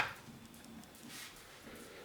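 A single sharp click, then a faint rustle about a second later.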